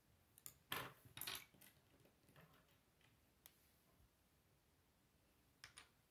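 Plastic Lego bricks clicking and clattering as they are handled and pressed together, with a loud cluster of clicks about a second in and two light clicks near the end.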